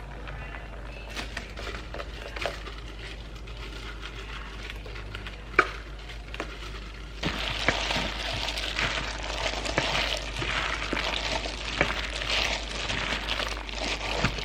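A steady low hum, then about seven seconds in a crackling sizzle of hot food starts, with scattered small clicks.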